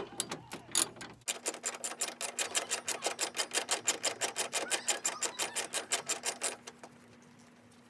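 Ratchet wrench with a 10 mm socket clicking rapidly and evenly, about eight or nine clicks a second for some five seconds, as the bolt holding the windshield washer fluid reservoir is backed out. A few loose knocks come before it.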